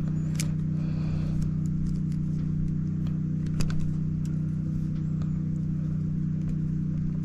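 A steady low mechanical hum that does not change, with a few small clicks and rustles from wires being handled.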